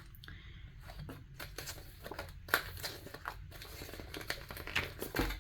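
Sheets and scraps of craft vinyl rustling and crinkling as they are handled, with a run of small irregular crackles and a few louder ones.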